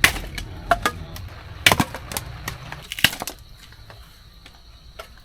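Firewood being chopped or split for a campfire: a few sharp wooden knocks about one to one and a half seconds apart, the last loud one about three seconds in, followed by fainter clicks and ticks.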